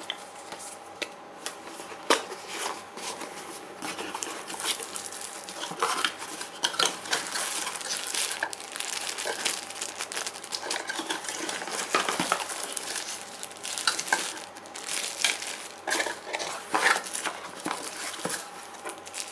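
Plastic wrapping crinkling and a cardboard phone box with its packed accessories being handled by hands: irregular rustles, crackles and small clicks, with a faint steady hum underneath.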